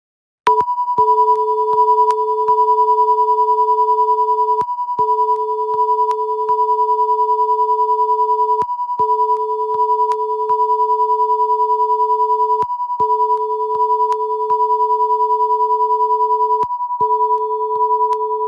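Broadcast line-up test signal from a Hitomi MatchBox audio-sync generator, its reference level marked as −20 dBFS. A steady high test tone runs alongside a lower tone that cuts out for a moment about every four seconds, with short sharp clicks about once or twice a second. The tones start about half a second in.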